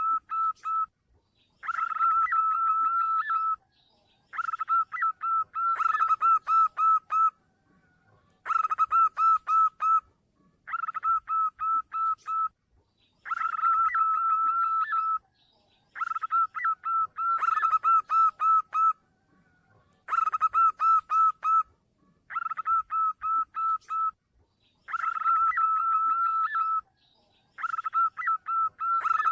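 Zebra dove (perkutut) song used as a lure call: phrases of quick staccato coos on a steady pitch, each a second or two long, repeated over and over with short pauses between.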